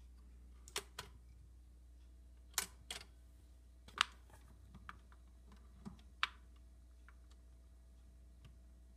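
Garrard Synchro-Lab automatic turntable's changer mechanism cycling after the start lever is pressed: a run of sharp mechanical clicks and clunks, the loudest about four seconds in, over a faint steady hum.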